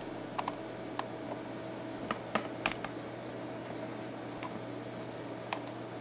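About half a dozen faint, sharp clicks at irregular intervals over a steady low hum.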